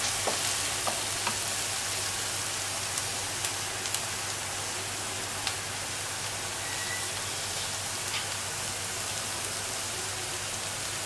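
Chopped onion sizzling in oil in a nonstick wok, a steady even sizzle; it is at a gentle sauté, softening without browning. A wooden spoon clicks and scrapes against the pan in the first second or so, with a few stray clicks later.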